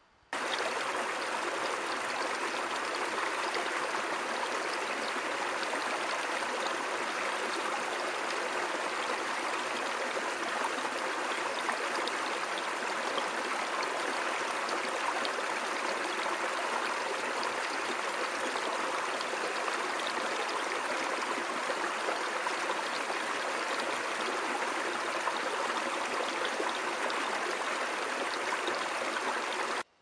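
Small forest stream running over a low cascade: a steady rush of water that starts and cuts off abruptly.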